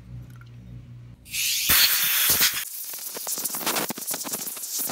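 Compressed-air blow gun blasting cleaning solvent out of a starter motor's end cover and bushing. It starts suddenly about a second in with a loud hiss, which turns rougher and crackly as the liquid sprays off the part.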